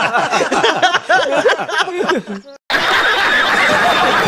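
A man laughing loudly in quick, repeated falling bursts, which cuts off about two and a half seconds in. After a short gap, a studio audience laughs and claps.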